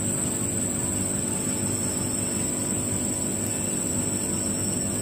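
A steady, unchanging engine-like drone from a running machine, with a constant high-pitched whine above it.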